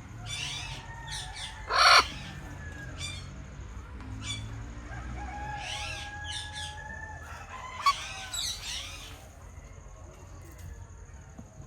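Parrots calling: a run of short chirps and sweeping whistled calls, with a loud harsh squawk about two seconds in and another sharp call near eight seconds; the calls thin out after about nine seconds.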